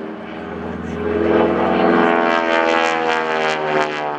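SNJ-5 Texan's Pratt & Whitney R-1340 nine-cylinder radial engine and propeller droning overhead in aerobatic flight, growing louder about a second in.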